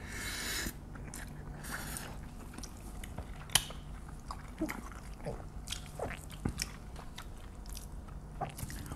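People chewing mouthfuls of rice mixed with soy-marinated raw crab, roe and seaweed: soft wet chewing with scattered mouth clicks and lip smacks, after a short hiss at the start as the spoonfuls go in.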